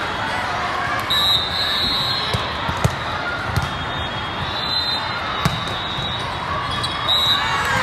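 Volleyballs thudding sharply as they are bounced and hit, several separate impacts over a steady crowd hubbub echoing in a large hall.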